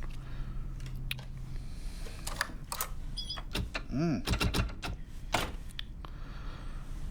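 Irregular clicks and knocks, like small objects being handled or typed on, over low room tone. There is a short squeak that rises and falls about four seconds in.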